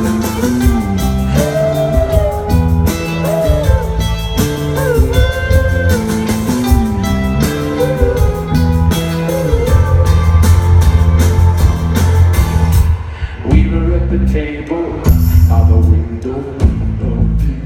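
Live rock band playing loudly: heavy bass and drums under a bending guitar or vocal melody line. The cymbals drop out about thirteen seconds in and the music thins to a sparser, pulsing passage.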